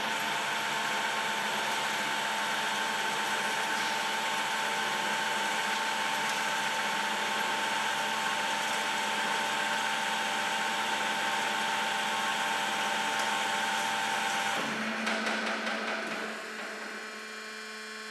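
Bomar Transverse 610.440 DGH band saw running, with a steady whine over its motor and blade drive as the saw arm lowers. About fifteen seconds in the running sound changes and winds down, leaving a quieter steady hum.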